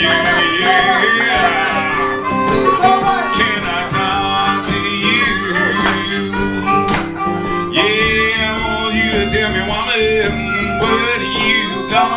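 Blues harmonica played cupped against a vocal microphone, with bending, wavering notes, over a strummed acoustic guitar.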